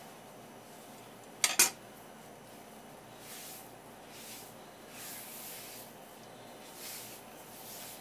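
A ceramic rice bowl clinks twice in quick succession against a wooden cutting board, followed by several soft brushing swishes as it is handled and slid about.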